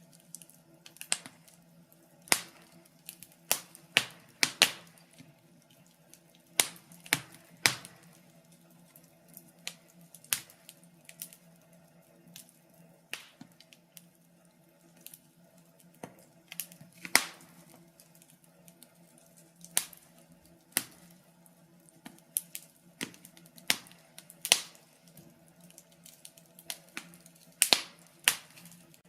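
Wood fire crackling in a fireplace: irregular sharp pops and snaps from the burning logs, some loud and some faint, a few a second at most, over a faint steady low hum.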